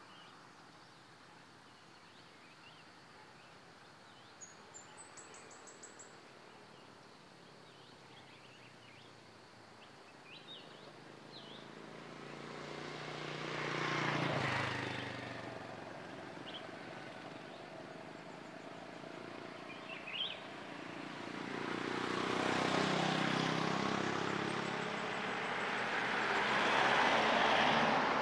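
Motorbike engines passing on a road: one swells up and fades about halfway through, then more build up and stay loud near the end. Before that, faint bird chirps over outdoor background noise.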